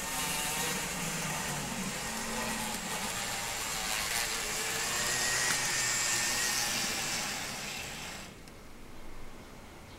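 Motor and wheels of an N-gauge model electric train running on its track, giving a steady whirring whine. It grows loudest as the train nears, then fades and cuts off about eight seconds in.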